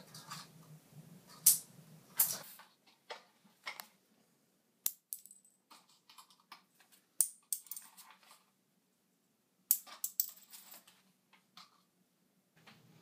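Thumbtacks dropped a few at a time onto a ceramic tile floor: a scattered run of small, sharp clicks and ticks with quiet gaps between them.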